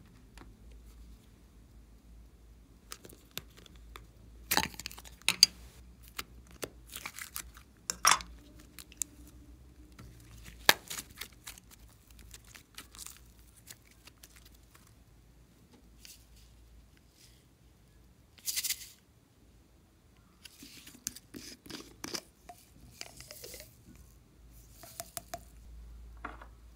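Hands handling glossy slime, glitter and small plastic toy containers: scattered clicks, taps and crinkly crackles, with a brief rustling rush about two-thirds of the way through.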